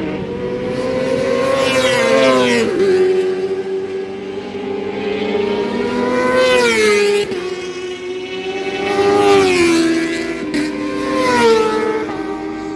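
Several racing engines passing at speed down the straight one after another, each swelling in loudness and then dropping in pitch as it goes by.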